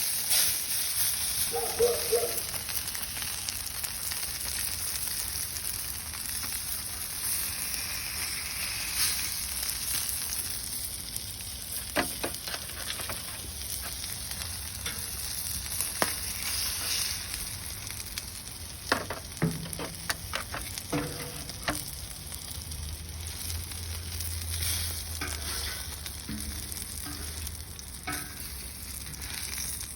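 Food sizzling on a hot grill: a steady frying hiss, broken by a few sharp clicks about halfway through.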